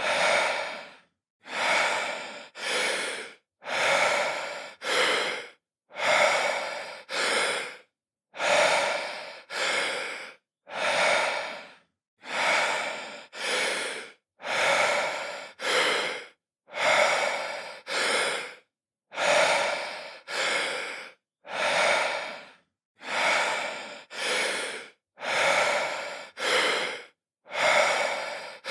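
A man breathing deeply in and out, each breath a short airy rush of under a second. One in-and-out pair comes about every two seconds, with silence between the pairs.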